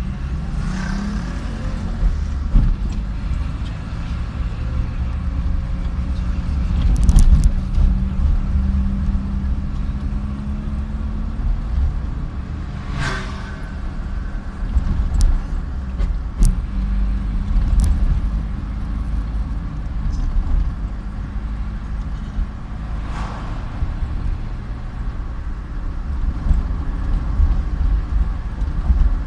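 Engine of a slowly driving vehicle running steadily, with a low rumble of road and wind noise that swells briefly about a quarter of the way in. A few short sharp knocks come later.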